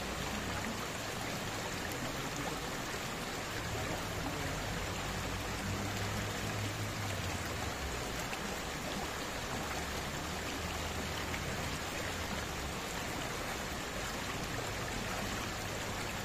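Shallow river flowing steadily over rocks and stones: a constant, even wash of moving water.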